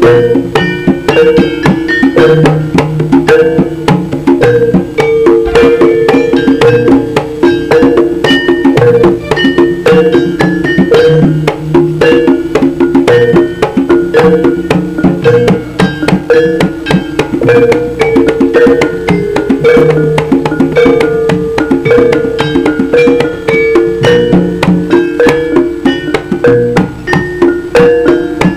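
Live East Javanese jaranan ensemble playing for the dance: hand drums and metal gamelan percussion in a fast, steady, unbroken rhythm.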